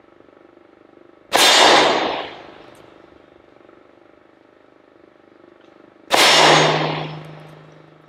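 Two shots from a Taurus .357 Magnum revolver loaded with .38 Special, about five seconds apart, each a sharp report that dies away over about a second. After the second shot a low steady ring from the struck steel silhouette target carries on.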